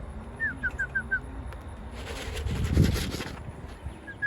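Pigeons cooing low and soft, with a small bird giving two quick runs of five short, high, falling chirps, one early and one at the end. In the middle comes a second-long fluttering rush of noise, the loudest sound here.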